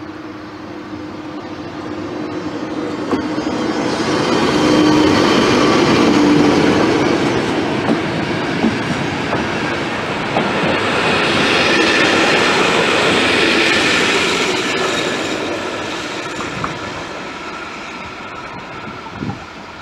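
ČD class 362 electric locomotive 362.062 hauling a passenger train past. The sound swells as the locomotive goes by with a steady hum, then the coaches' wheels run past with a few sharp clicks, and it fades as the train draws away.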